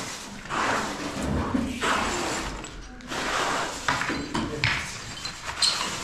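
Rough scraping strokes mixed with dull knocks, coming irregularly about once or twice a second, typical of hand work with tools or building materials.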